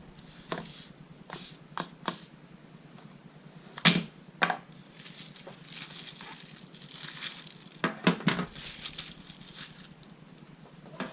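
Handling sounds from unpacking a folding pocket knife: scattered sharp clicks and knocks, the loudest about four seconds in, with a stretch of rustling from about five to ten seconds in.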